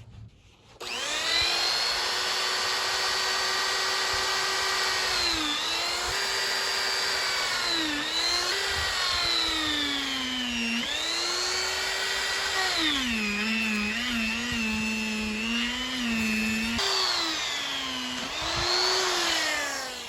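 Handheld power carving tool whining at high speed as it cuts the eye detail into the wood. It starts about a second in, and its pitch sags and recovers several times as the cutter bites and eases off.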